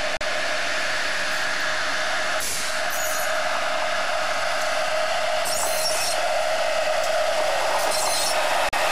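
Narrow-gauge diesel locomotive running past with a train of goods wagons: a steady engine-and-wheel noise under a hiss, with three short bursts of high-pitched rail noise along the way.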